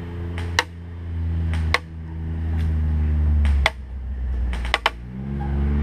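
Scattered sharp cracks of airsoft play, about five single snaps a second or so apart, two in quick succession near the end, over a steady low hum that swells between them.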